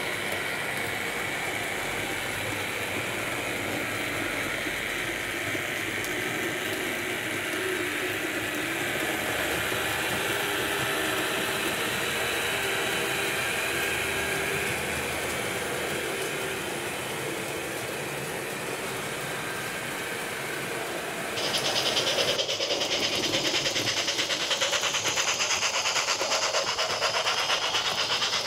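HO scale model train running along its track, wheels and motor making a steady running noise. About 21 seconds in it changes suddenly to a louder run with a fast, even clicking of wheels over the rails.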